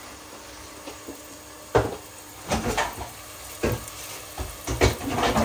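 Diced onions sizzling steadily as they fry in ghee in a pan. From about two seconds in there are several sharp knocks and clatters of kitchen things.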